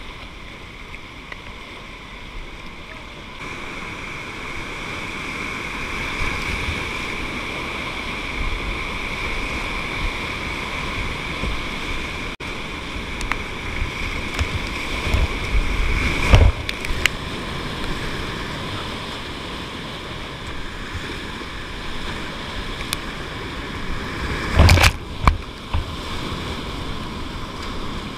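Whitewater rapids rushing around a kayak running them, the rush growing louder a few seconds in as the boat drops into the rapid. Twice, about midway and near the end, a loud splash-like thump as paddle-thrown water hits close to the camera.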